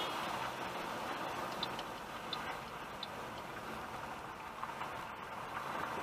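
Car cabin noise of road and engine as the car pulls away from a standstill and picks up speed, with three short high ticks evenly spaced about 0.7 s apart a couple of seconds in.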